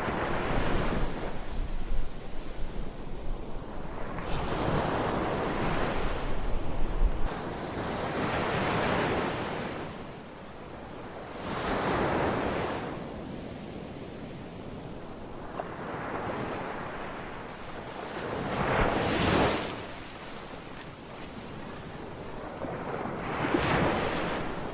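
Slow, deep breathing close to the microphone during counted pranayama-style breathing: each inhale and exhale a rushing swell of air that rises and falls, about one every three and a half seconds.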